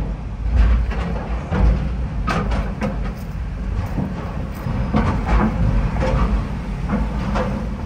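Car driving slowly up a ferry's loading ramp onto the car deck, heard from inside the cabin: a steady low road rumble with scattered knocks and clatters.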